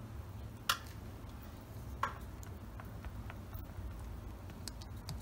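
Two sharp clinks of a metal spoon against a glass mixing bowl, about a second apart, followed by faint small ticks of a spatula stirring the thick yogurt marinade in the bowl.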